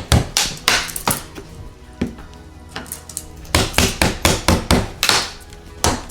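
Quick knocks and taps as wooden wall trim is worked loose and pulled off. There is a cluster of strikes at the start, then a faster run of taps about three and a half seconds in.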